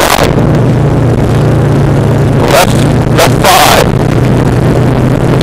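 Loud in-cabin sound of a rally Subaru Impreza's WRX turbocharged flat-four running hard at fairly steady revs, with gravel and road noise from the car driving a stage flat out.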